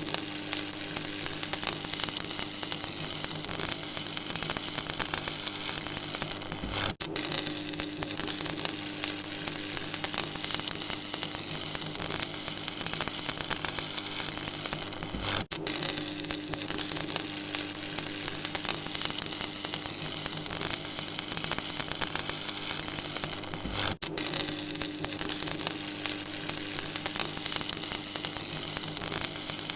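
Electrical hum and crackle: a steady mains-type hum under a continuous sizzling, crackling hiss. It cuts out briefly about every eight and a half seconds.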